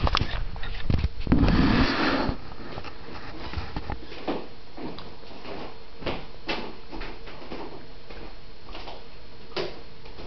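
Handheld camera being handled and set down on a wooden table: a couple of sharp knocks and a rough, rumbling scrape in the first two seconds, then only faint scattered taps and clicks.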